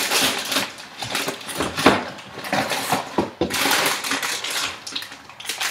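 Rummaging in a kitchen wall cupboard: packages and containers shuffled and knocked about, with rustling and clatter and a sharp knock about two seconds in.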